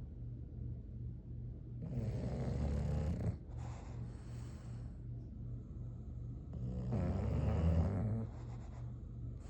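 English bulldog snoring in its sleep: two long snores, about two seconds in and about seven seconds in, with a softer breath between them.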